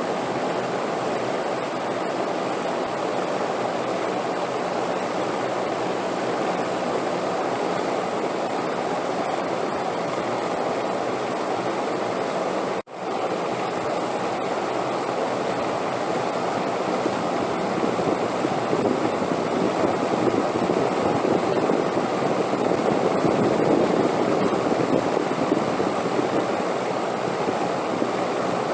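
Wind blowing steadily, a continuous rushing that swells louder in the second half, with a split-second drop-out about thirteen seconds in.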